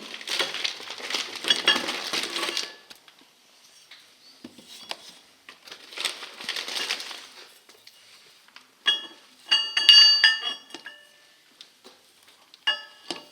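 Packaging rustling as it is unwrapped, twice, then steel lathe chuck jaws clinking and ringing against one another in a rapid cluster of strikes, with a few more clinks near the end.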